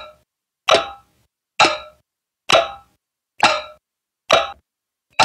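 Added sound effect: a short, sharp pitched knock repeating evenly a little faster than once a second, about six times.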